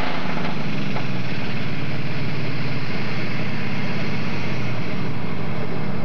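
Alcohol-burning super stock pulling tractor engine running loud and steady at the line, with rapid firing pulses; its sound shifts about five seconds in as the tractor starts forward.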